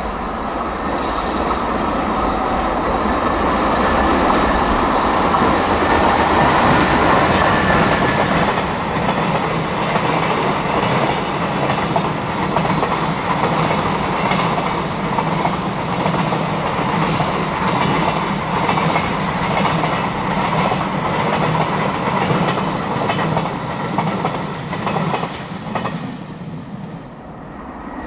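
JR Freight EH500 electric locomotive passing at speed, followed by a long string of container flatcars whose wheels clatter rhythmically over the rail joints. The sound falls away about a second before the end as the last wagon goes by.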